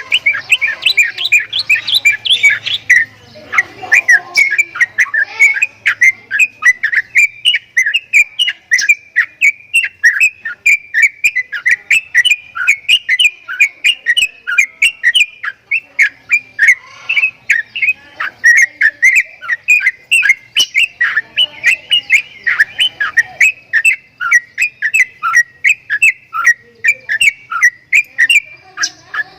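Javan myna calling a long, unbroken run of short, sharp whistled chirps, about three or four a second, all near the same pitch.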